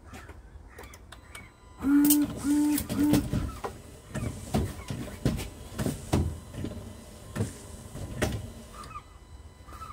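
Nissan Qashqai windscreen wipers running on a test after a new wiper linkage has been fitted: the motor and blades sweep with a knock at each stroke, about every 0.7 s. Before the wiping starts there are three short beeps.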